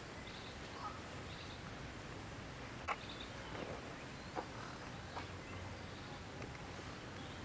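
Quiet outdoor ambience: steady background noise with faint, short, high chirps scattered through it and a few sharp clicks, the loudest about three seconds in and again about a second and a half later.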